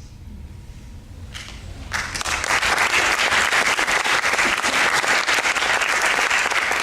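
Audience applause in a theatre: dense clapping that breaks out about two seconds in and keeps going steadily.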